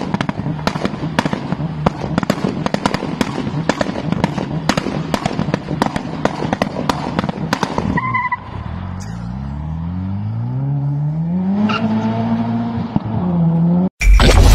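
Small van's exhaust popping and banging hard, a few sharp cracks a second over the running engine, for about eight seconds. Then the engine note climbs steadily as it revs out, before a cut near the end.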